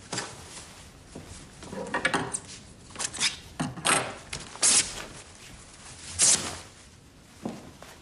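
Rustling and handling of cloth, irregular soft swishes and light knocks, with two sharper swishes about four and a half and six seconds in.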